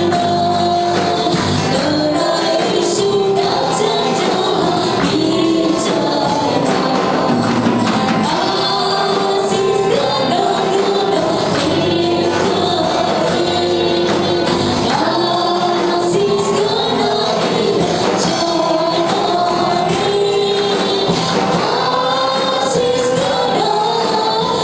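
A mixed group of men and women singing a Christian worship song in Nepali into microphones, over an amplified band with percussion keeping a steady beat.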